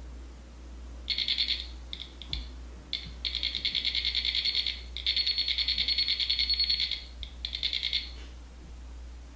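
Small electronic alarm of a ghost-hunting detector going off, beeping rapidly at about seven beeps a second. It sounds in several bursts, starting about a second in and stopping near the end, the sign that the device has been triggered.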